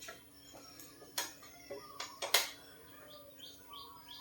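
Metal clicks from a 6 mm Allen key working the motorcycle's rear rack bolts loose, two sharp ones standing out, with a few short bird chirps near the end.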